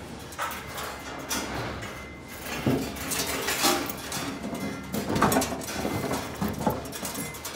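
Irregular knocks, clinks and scrapes from hands-on work with ceiling hanger wire and gear.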